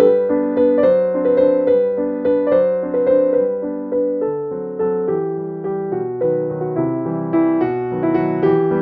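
Background piano music, a gentle melody with notes struck at an even pace of about two a second.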